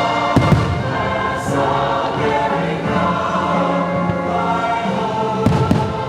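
Orchestral show music with a choir singing long held notes, with sharp thumps about half a second in and twice more near the end.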